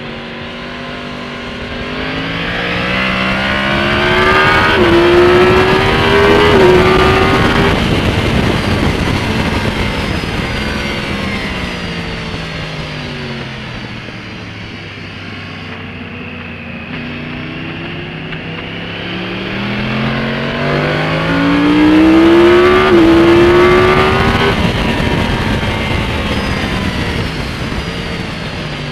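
Yamaha R1 crossplane inline-four superbike with Yoshimura carbon silencers and the catalyst removed, heard from onboard under wind rush: it revs hard up through the gears twice, each climb broken by short stepped dips in pitch from quickshifter upshifts, then the throttle shuts and the revs fall away on the overrun as the bike brakes for the next corner.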